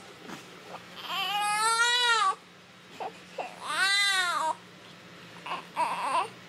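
Newborn baby crying as it is dressed: two long wails, each rising then falling in pitch, then a shorter cry near the end.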